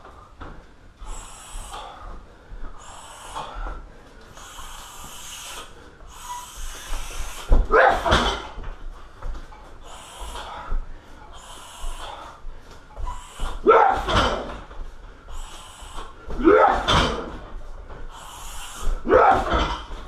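A Muay Thai fighter breathing out in short, sharp hisses as he throws strikes at a car tyre. Four heavier strikes, about 8, 14, 17 and 19 seconds in, each land with a deep thud and a voiced grunt.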